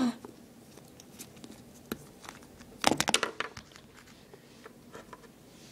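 Handling noise of small plastic toy figures being moved by hand over a blanket and book: scattered light clicks and rustles, with a louder cluster of knocks and rustling about three seconds in.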